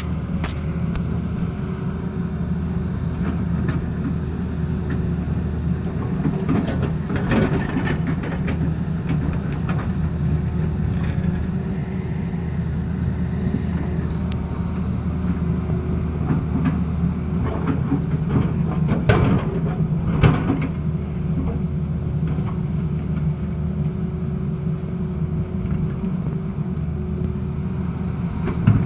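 Tata Hitachi excavator's diesel engine running steadily under load while its bucket digs and shoves rock and soil. Knocks and scrapes of rock come about seven seconds in and again around eighteen to twenty seconds in, the loudest near twenty seconds.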